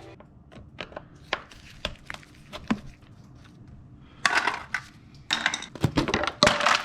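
Motorcycle air filter housing parts and a screwdriver being handled: scattered light clicks and taps, then two louder stretches of scraping and rattling over the last few seconds as the housing is worked open.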